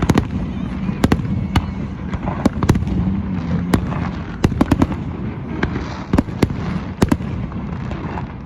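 Fireworks going off in quick, irregular succession: many sharp bangs and cracks, two or three a second, over a steady low rumble.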